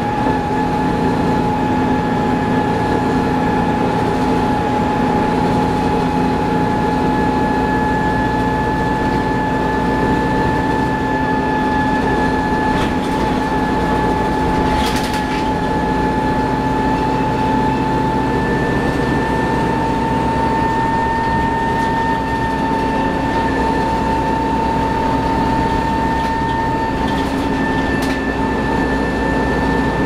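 Inside a 1994 TMC RTS transit bus under way: its Detroit Diesel Series 50 inline-four diesel and Allison VR-731 automatic transmission running steadily, with a loud rumble and a high steady whine whose pitch creeps up slightly partway through. A short rattle about halfway through.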